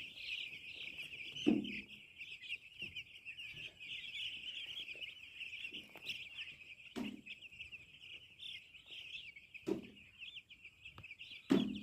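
A crowd of day-old broiler chicks peeping together in a continuous high chatter of many overlapping chirps. A few short dull knocks come now and then, the loudest about a second and a half in and near the end.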